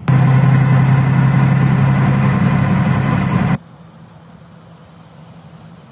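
Loud steady vehicle drone with a strong low hum, the sound of a car or truck running, that cuts off abruptly about three and a half seconds in, leaving faint steady outdoor background noise.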